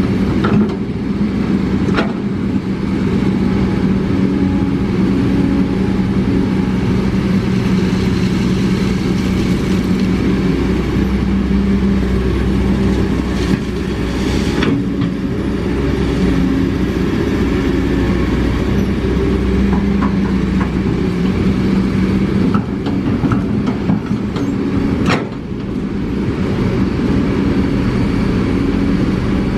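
Kobelco SK200 hydraulic excavator's diesel engine running steadily under working load while it digs and swings, its note shifting as the load changes. Three sharp knocks are spread through it.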